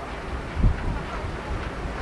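Strong gale wind buffeting the microphone: low, irregular rumbling gusts over a steady rush of wind.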